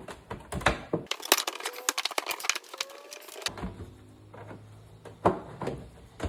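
Wooden barrel head being worked loose from an oak bourbon barrel: a run of irregular clicks and knocks, thickest in the middle, with a couple of faint short creaks as the stuck head shifts in its groove.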